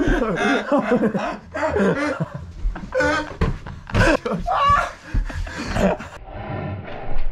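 Young men yelling and laughing loudly in wordless shouts, rowdy and drunk.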